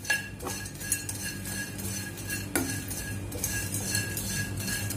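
Metal spatula scraping and clinking against a non-stick kadhai as dried shrimp are stirred while they dry-roast with no oil. There are sharper knocks of the spatula on the pan about half a second in and again past two and a half seconds.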